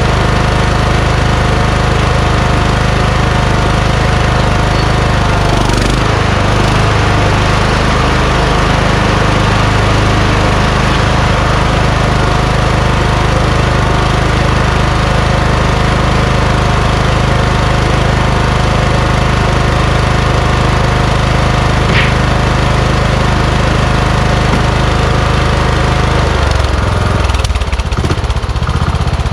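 Kohler Courage engine of a Craftsman YS4500 lawn tractor running steadily under throttle. Its sound shifts about six seconds in and changes again near the end.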